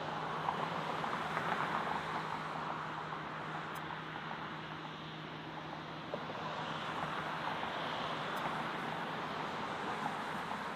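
Jet airliner engines running, heard as a steady rushing noise with a faint low hum beneath it.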